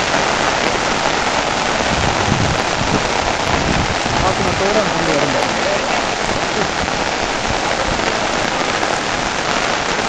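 Rain falling steadily.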